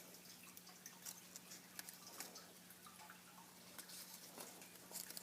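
Near silence with faint, scattered crinkles and ticks of a paper square being handled and creased during origami folding, over a steady low hum.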